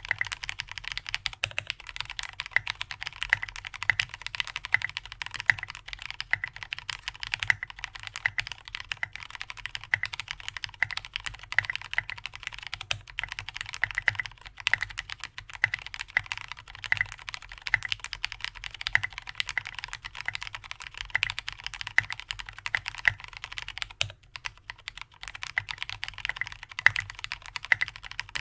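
Continuous typing on an AR87 mechanical keyboard with an aluminium plate, lubed Cherry MX Black linear switches and tall SA-profile keycaps: a dense, steady run of keystrokes with a brief pause about 24 seconds in.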